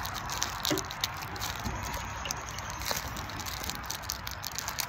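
Plastic candy-bar wrapper crinkling and crackling as it is pulled open by hand, many small irregular crackles over a steady background hiss.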